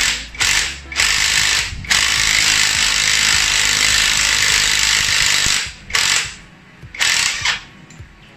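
Cordless impact driver hammering on a bolt of a Yamaha Mio scooter's engine support bracket to undo it. It starts with two short bursts, then one long run of about four seconds, then two more short bursts near the end.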